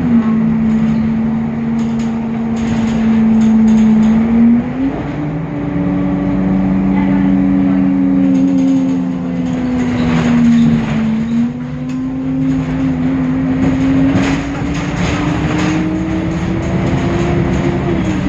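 Temsa Avenue LF city bus's DAF diesel engine and ZF Ecolife six-speed automatic gearbox running under way, with a strong deep drone. Its pitch drops at the very start, jumps up about five seconds in and again about eleven seconds in, glides slowly between, and drops again near the end, in steps like gear changes. Occasional knocks and rattles come through between about ten and sixteen seconds in.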